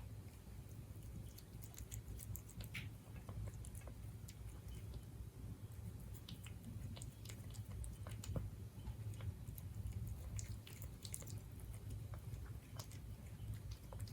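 Siberian cat chewing its food, with irregular small clicks and crunches, over a steady low hum.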